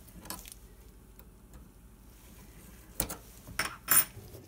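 Small metallic clicks of the faucet repair kit's spanner tool catching and turning on the single-handle kitchen faucet's retaining nut: one faint click near the start, then three sharp clicks about three to four seconds in, the last the loudest.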